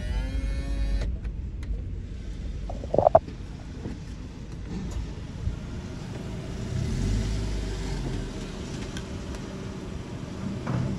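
A car's electric window motor whining, stopping abruptly about a second in, then the car idling with a steady low engine rumble. A short sharp sound stands out about three seconds in.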